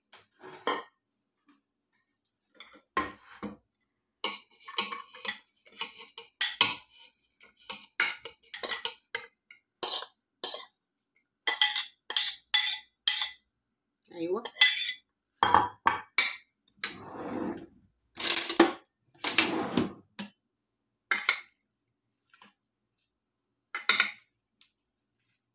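Metal spoons clinking and scraping against a ceramic bowl and a china plate as a chopped salad is stirred, tipped out and tossed. The clinks are sharp and come irregularly, with a few longer scraping sounds about two-thirds of the way through.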